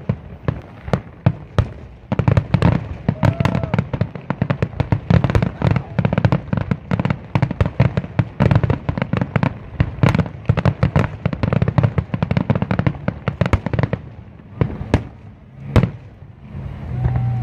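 Aerial fireworks finale: a rapid, dense barrage of shell bursts and crackle. It thins out about fourteen seconds in to a few last loud booms.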